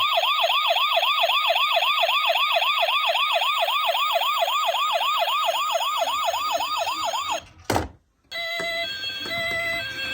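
Electronic ambulance siren in a fast yelp, rapidly rising sweeps about three or four a second. It cuts off about seven seconds in, followed by a single thump and then a short run of electronic beeping notes.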